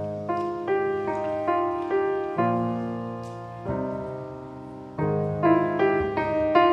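Grand piano played solo: a slow introduction of chords with a melody on top, each new note or chord struck and then dying away.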